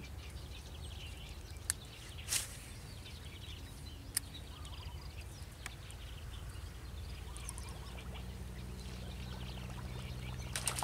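Open-air pond-side ambience with faint birds chirping and a low steady hum. A few sharp clicks or ticks come about 2 seconds in, once more about 4 seconds in, and in a quick cluster near the end. A steady low drone grows a little louder in the second half.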